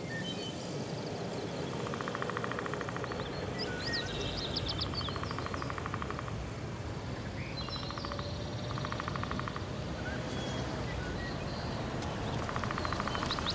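Outdoor ambience with birds chirping in short high calls and sweeps. A fast buzzing trill comes in about four times, each lasting a second or so, over a steady low background noise.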